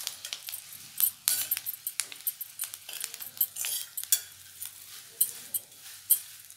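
Steel spoon stirring puffed rice in a steel kadhai: irregular clinks and scrapes of the spoon against the pan over the rustle of the dry rice as it is roasted with spices.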